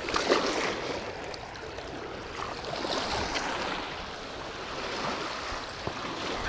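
River water lapping and washing against the bank, a steady rush with a louder surge just after the start.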